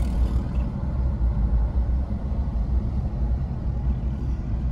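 Steady low rumble of a car being driven along a paved road: engine and tyre noise.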